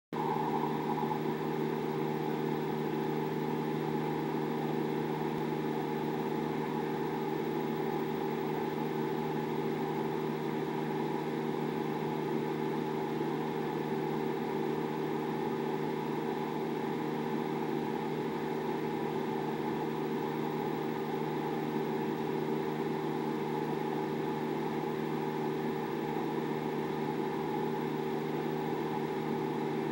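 A steady mechanical hum made of several held tones that does not change.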